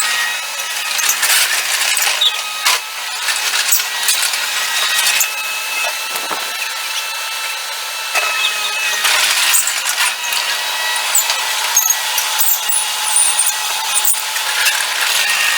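Mustang MTL25 compact track loader working, its sound sped up: the engine runs as a steady high whine, with frequent rattles and clanks over it.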